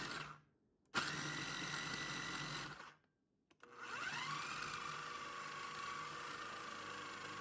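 Electric food processor motor running as it chops fresh herbs and vegetables, in two runs: about two seconds, a short stop, then it starts again with a rising whine that settles to a steady pitch and runs on.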